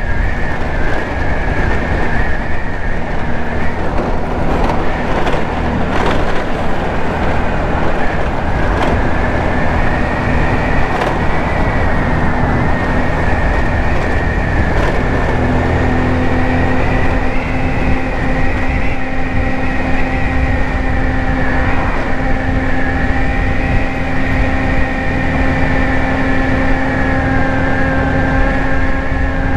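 Ice Bear Hawkeye 150cc scooter's GY6 single-cylinder four-stroke engine running steadily while riding at a cruising pace, with wind rushing over the microphone. A high whine holds over the engine throughout.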